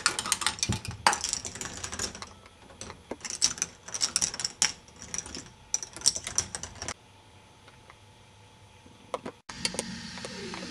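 Plastic balls rolling and clattering along the tracks of a K'nex ball machine, an irregular run of small hard clicks and knocks. The clatter dies down for about two seconds near the end, then starts up again.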